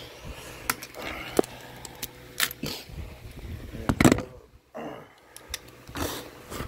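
Scattered metallic clicks and knocks of hand tools being handled, as a 5/8-inch spark plug socket is fitted to a ratchet extension. The loudest knock comes about four seconds in.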